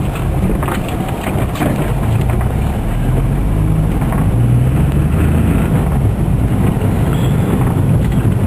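Inside a 1997 Geo Metro on the move: a steady low rumble of engine and road noise, growing a little louder about three seconds in.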